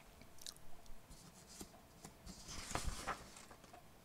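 Faint scattered clicks and soft rustling close to the microphone, thickest about two and a half to three seconds in.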